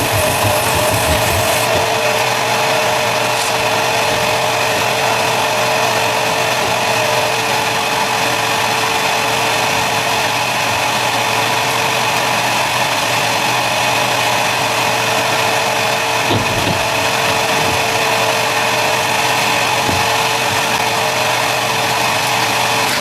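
Vacuum cleaner running steadily with a high motor whine. A high hiss of air at the nozzle stops about a second and a half in, and a couple of faint knocks come later.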